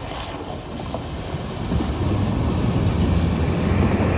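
A vehicle driving over a rough road: a steady low rumble with rattling, growing louder about two seconds in.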